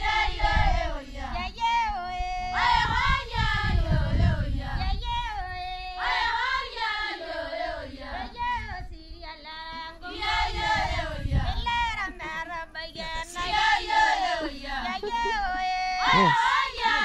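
Maasai villagers singing together, high voices carrying a flowing melody with held notes.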